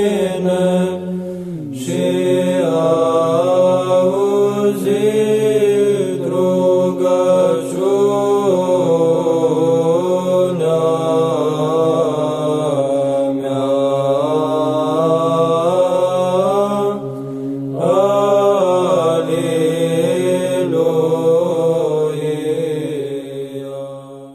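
Orthodox monks singing Byzantine chant: male voices carry a melody over a steadily held drone note (the ison). The singing breaks off briefly twice and fades out near the end.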